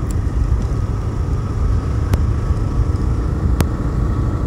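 Steady ride noise from a TVS Raider 125 cruising along a road: heavy wind rumble on the microphone over the running single-cylinder engine. A few faint ticks are heard.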